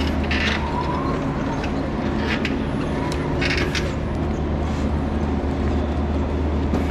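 An electric pallet jack moving a loaded pallet of boxes across a loading dock, over a steady low machine hum. Short rattles and clatters come about half a second in, around two and a half seconds, and again near four seconds.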